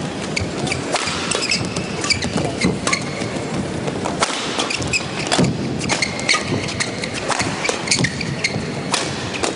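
Badminton doubles rally: rackets striking the shuttlecock again and again at an irregular pace, with shoes squeaking on the court in between.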